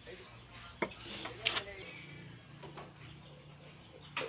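A few light clicks and knocks as a hand works at the oil filter and the surrounding parts under a car. The loudest knock comes about one and a half seconds in, over a faint steady low hum.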